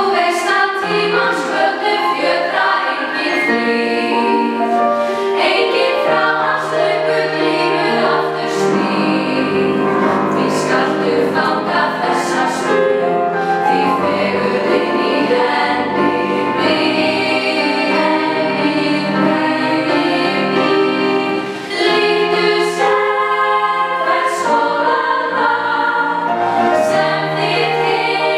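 Women's choir singing.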